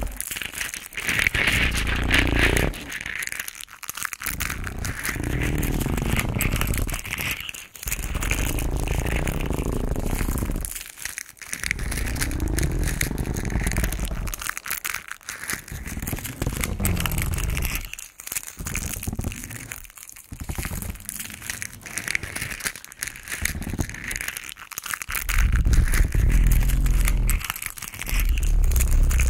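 Close-miked bell peppers being handled: crinkling, crunching skin noise in stretches of a few seconds with short breaks, over a heavy low rumble.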